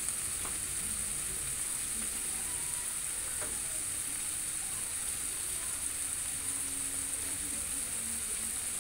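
Beef chunks sizzling steadily in a frying pan.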